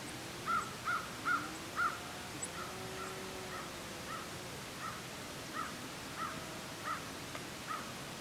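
Crow cawing: four loud caws in quick succession, then a run of softer caws about every two-thirds of a second.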